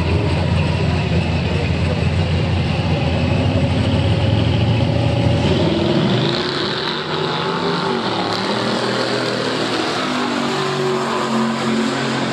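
Drag race car engines, a loud deep rumble as the cars sit at the start line. About six seconds in, the sound drops to a thinner, more distant engine drone with shifting pitch as a car runs down the strip.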